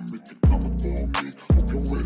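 Hip-hop backing track with no rapping: a beat with two deep bass hits about a second apart, each with a sharp snare crack over a pitched backing.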